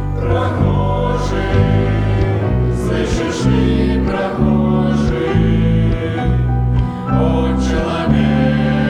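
Choir singing a Christian song over an instrumental accompaniment whose bass notes change about once a second.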